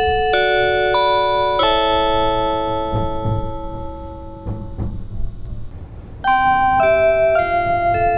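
JR 651 series onboard announcement chime: an electronic melody of ringing notes that sustains and fades. A second phrase starts about six seconds in. A low rumble runs underneath.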